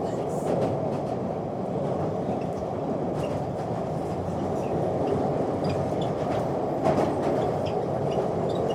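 London Underground train running, heard from inside the carriage: a steady rumble of wheels and car body with faint rattles and ticks, and a single clunk about seven seconds in.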